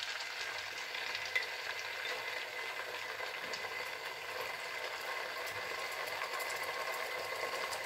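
Hot sunflower oil in a pot sizzling steadily as a freshly added blended wet-spice paste of garlic, ginger and onion fries in it.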